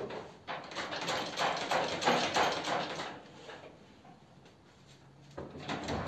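Irregular scraping and knocking of metal parts worked by hand in an engine bay, busiest in the first half and picking up again near the end.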